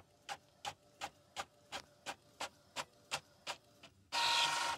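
Epson EcoTank ET-4750 inkjet printer printing a test page: an even ticking about three times a second, then a louder whir from the print mechanism's motor near the end that stops abruptly.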